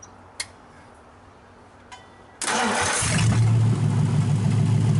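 The engine in a 1931 Ford hot rod chassis starts about two and a half seconds in: a brief crank, then it catches and runs steadily. A couple of light clicks come before it.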